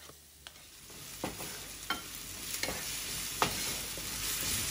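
Chopped onion and ginger sizzling in hot cooking oil in a nonstick frying pan, the sizzle building from about a second in as the aromatics are sautéed. A wooden spatula stirring them gives a few sharp taps and scrapes against the pan.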